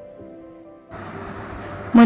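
Background music with soft sustained notes that fade out about a second in, giving way to a faint hiss.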